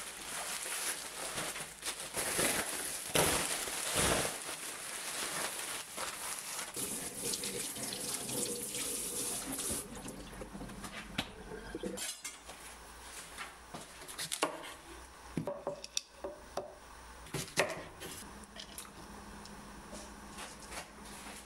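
Kitchen tap running into a sink as a large Korean green onion (daepa) is rinsed of soil. The water noise ends about ten seconds in, followed by scattered knocks and clinks as things are handled on the counter.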